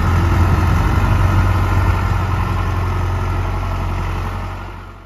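A 2004 John Deere 5420 tractor's diesel engine runs steadily at low speed as the tractor drives forward, a deep, even engine note. The sound fades out near the end.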